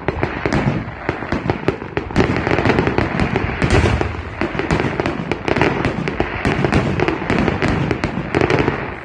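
Fireworks grand finale: a dense, unbroken barrage of rapid bangs and crackling shell bursts.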